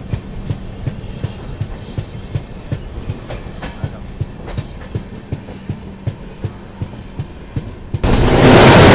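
Indian Railways passenger train running, heard from inside the coach: a steady low rumble with the wheels clicking over rail joints a few times a second. About eight seconds in it cuts to much louder rushing wind and rail noise, heard at an open door or window of the running coach.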